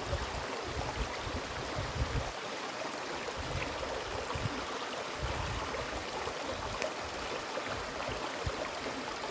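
Mountain stream water rushing and splashing over rocks in a steady wash, with uneven low rumbles underneath.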